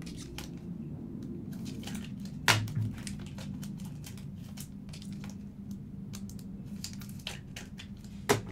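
Trading-card pack being handled and opened by hand: crinkling of the wrapper and cards rustling against each other, with a sharp snap about two and a half seconds in and another near the end.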